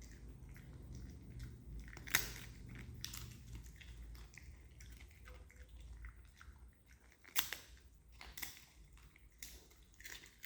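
Crisp jackfruit papad being bitten and chewed, with sharp crunches a little after two seconds and three seconds in, then again at about seven and a half, eight and a half and nine and a half seconds, amid softer chewing.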